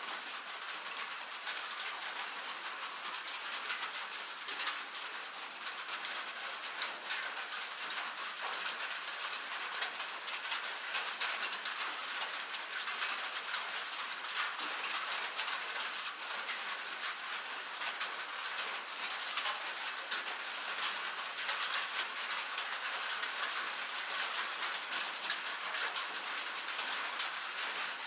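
Steady rain on a metal roof: a dense hiss of falling drops peppered with many small, sharp taps, bright and light, with almost no low rumble.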